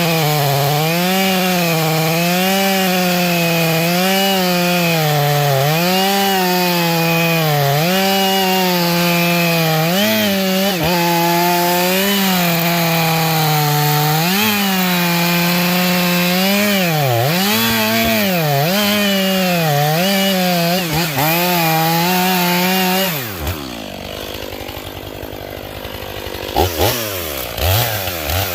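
Two-stroke chainsaw running at full throttle in a cut, its pitch dipping and recovering every second or two as the chain bites and clears. Near the end it drops back to idle, is revved a few times and goes back up to full speed.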